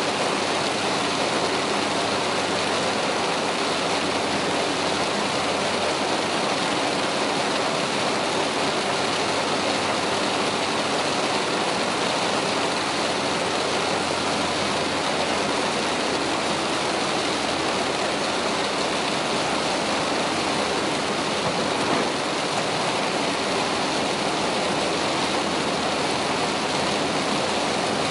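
Heavy rain hitting a car's roof and windshield together with tyre hiss on the waterlogged road, heard from inside the moving car as a steady, even rush.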